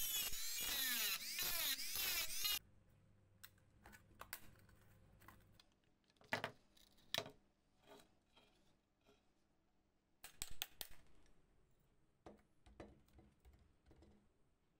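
Handheld rotary tool with a small bit grinding at a rusted hole in a flashlight's sheet-metal casing, its whine rising and falling in pitch as it works, then stopping abruptly about two and a half seconds in. Scattered light clicks and taps of small metal parts being handled follow, with a brief cluster of them a little past the middle.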